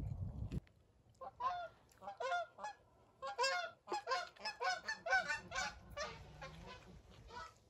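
Canada geese honking: a quick run of many short honks starting about a second in, thickest in the middle and thinning out near the end. A brief low rumble cuts off just before the honking starts.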